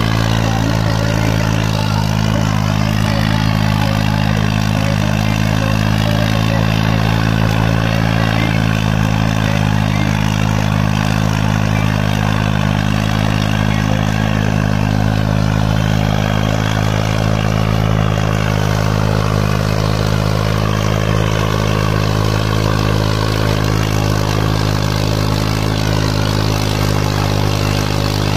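New Holland 3630 tractor's three-cylinder diesel engine running steadily at constant speed while pulling a harrow.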